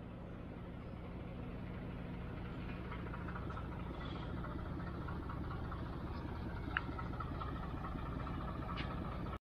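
A steady engine hum that grows slowly louder, with two short sharp clicks near the end.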